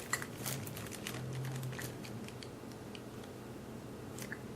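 Faint, scattered small clicks and light handling noises over a low steady hum.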